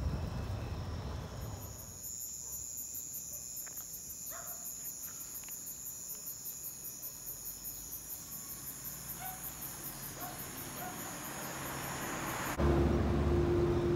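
Night insects calling: a steady high-pitched trill with a fast, even pulse, over faint wind noise. Near the end it cuts off suddenly into louder wind and road noise.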